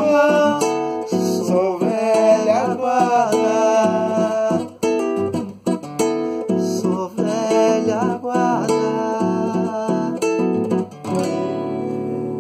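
Classical nylon-string guitar strummed through the closing bars of a song, with wordless singing of the melody in places. It ends on a chord that is left to ring out near the end.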